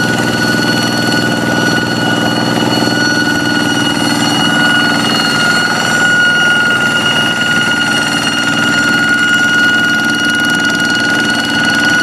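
Kubota diesel engine of a hand tractor running steadily, its rapid firing beat under a steady high-pitched whine ('ngiung ngiung') that is still there.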